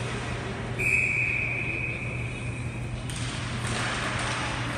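Referee's whistle blown once on the ice: a shrill, steady note of about two seconds, starting about a second in. A steady low hum runs underneath, and a hiss of background noise rises after the whistle stops.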